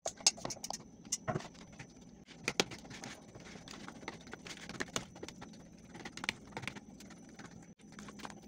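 A metal fork mashing soft boiled jiló in a plastic bowl, with irregular clicks and taps of the fork against the bowl, several a second.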